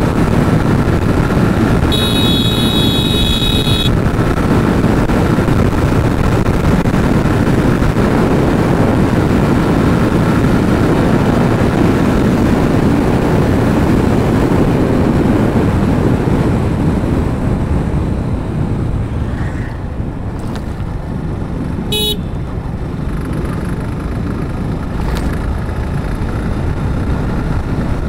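Steady rush of a motorcycle riding along a road, easing slightly past the middle. A vehicle horn sounds for about two seconds a few seconds in, and a short horn beep comes later.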